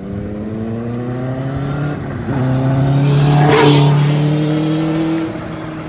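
Benelli TNT 600i's 600 cc inline-four engine accelerating, its pitch rising steadily. It drops briefly about two seconds in as it shifts up a gear, then climbs again, getting louder and peaking around three and a half seconds as the bike passes close, then easing off.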